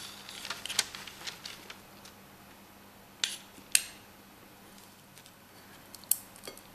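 Metal spoons clicking and scraping against each other and a bowl while spooning chocolate-coated cornflake clusters: a few sharp clicks scattered through, two close together a little past three seconds in and another near six seconds.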